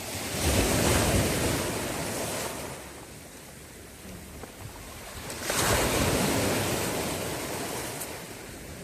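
Sea waves breaking and washing up twice: a surge about half a second in, then another about five and a half seconds in, each hissing away over a couple of seconds.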